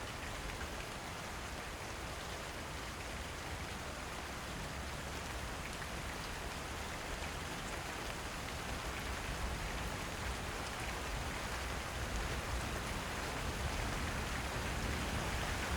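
Steady rain coming down on a roof, a dense even patter of drops that grows slowly louder toward the end.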